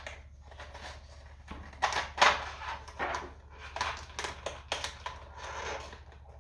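Clicky mechanical keyboard switches (Gateron blue) clicking and clattering as they are handled, a scatter of sharp plastic clicks with brief rustles.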